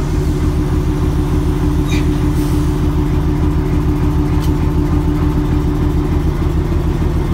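Diesel locomotive engine running steadily at a low, even idle beside the coupling, with a few faint light metallic clicks.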